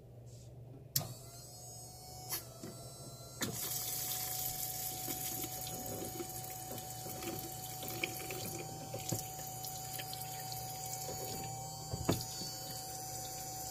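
Small electric water pump switched on with a click about a second in, then running with a thin steady whine. A couple of seconds later water starts spraying from a pull-out sprayer nozzle into a wooden bowl sink and keeps splashing steadily.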